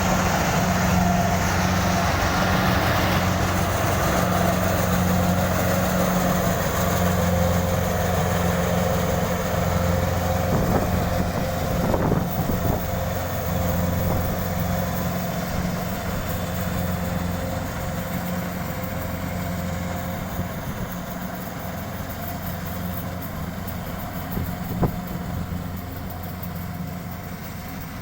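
Kubota DC-70 combine harvester's diesel engine running steadily, slowly getting quieter over the stretch. There are a couple of brief knocks, one about halfway through and one near the end.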